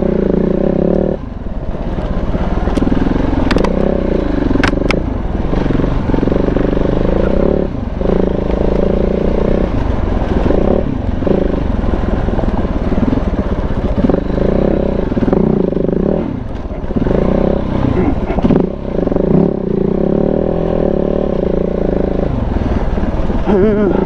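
KTM 690 big-bore single-cylinder engine running on a trail ride, its pitch rising and falling as the throttle is opened and closed, with brief dips where it is backed off. A few sharp ticks come about three to five seconds in.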